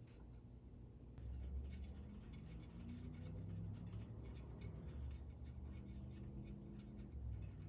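Hands and small tools working on an engine's valve cover: light scraping and clicking of metal parts over a low hum.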